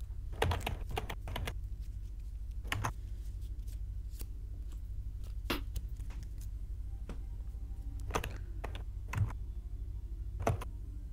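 Trading cards being picked up and set down on the table: scattered sharp clicks and taps, a quick cluster in the first second and a half, then single taps every second or two, over a steady low hum.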